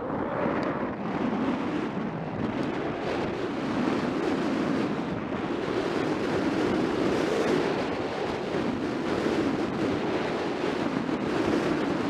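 Wind rushing over a head-mounted camera's microphone during a fast run down a groomed slope, mixed with the steady scrape of edges sliding and carving on firm, packed snow. The noise swells and eases slightly with the turns.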